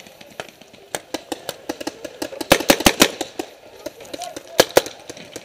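Paintball markers firing: scattered pops throughout, a rapid string of shots about two and a half seconds in, and two loud shots near the end.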